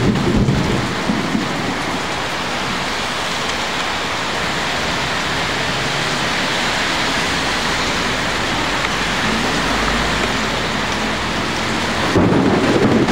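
Heavy typhoon rain pouring down steadily on the street, an even, dense hiss that grows louder near the end.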